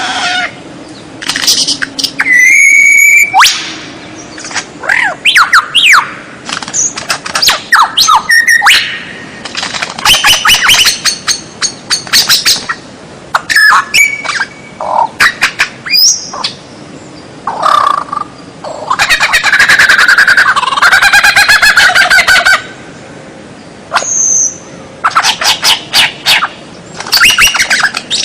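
White-rumped shama (murai batu) singing a long, varied song: clear whistled notes, fast trills and harsher scratchy notes, delivered in bursts separated by short pauses.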